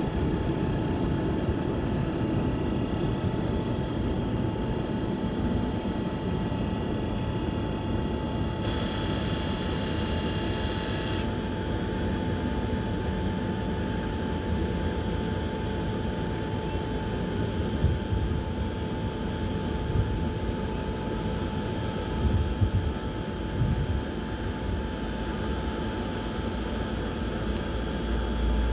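DB class 146.5 Bombardier Traxx electric locomotive standing with its cooling blowers running, giving a steady rushing noise with a constant high electronic whine. For a couple of seconds around ten seconds in, extra whining tones come in and then drop away. A few low buffets of wind on the microphone are heard in the second half.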